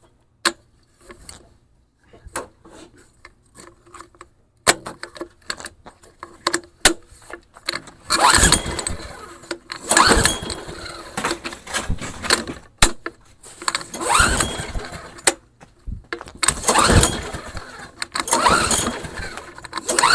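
Briggs & Stratton 5 hp lawnmower engine being pull-started: the recoil starter cord is yanked several times in a row in the second half, and the engine turns over without catching. The owner puts this down to fuel starvation, too little fuel in the tank.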